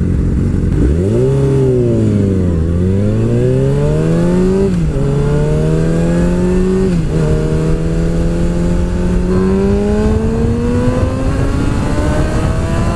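Yamaha R6's inline-four engine accelerating hard through the gears: its pitch rises and dips as the bike pulls away, then climbs steadily with a sudden drop at each upshift, about five and seven seconds in. A steady rush of wind noise lies under it.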